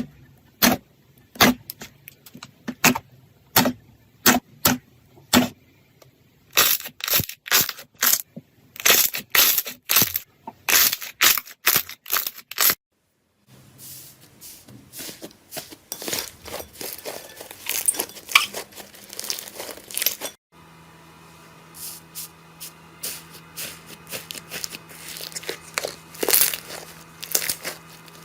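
Slime being squeezed, poked and stretched by hand, giving runs of sharp clicks, pops and crackles across several short clips. The clicks are evenly spaced at first, then come thick and fast.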